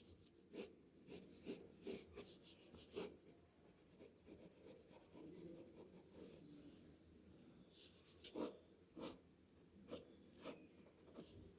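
Faint drawing strokes scratching across paper: a run of short separate strokes, a few seconds of continuous scratching in the middle, then more single strokes.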